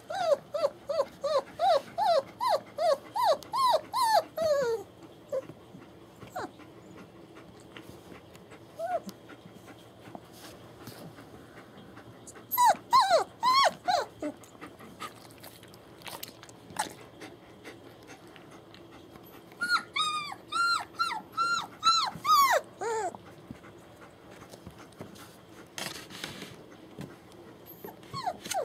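Young German Shepherd puppies, about three and a half weeks old, whining and squealing in strings of short, falling cries, several a second. The cries come in three bouts: at the start, about 12 seconds in, and about 20 seconds in.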